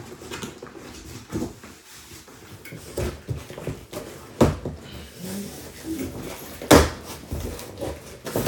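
Large cardboard shipping box being handled: flaps pulled, bent and folded back, with several sharp knocks and scrapes of the cardboard, the loudest about two-thirds of the way through.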